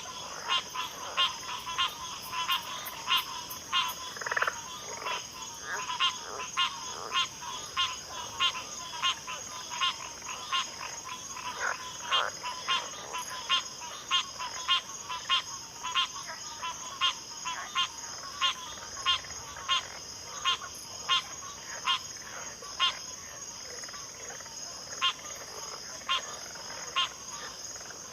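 Frog chorus at a backwater: many short, sharp calls overlapping at irregular intervals, about two or three a second, over a steady high-pitched drone.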